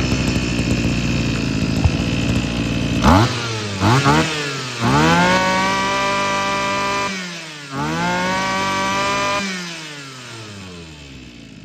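Stihl FS26 brush cutter's small petrol engine being test-run after starting easily. It runs rough and low at first, then is revved up twice with the throttle and held at high revs for a couple of seconds each time. After each rev it winds down with a falling pitch, settling back toward idle near the end.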